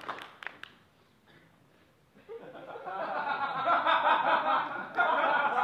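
A few last hand claps, then after a short lull audience laughter builds from about two seconds in and grows louder toward the end.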